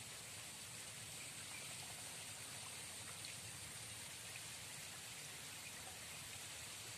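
Faint, steady riverside ambience: an even hiss of flowing river water with a steady high-pitched insect-like band over it.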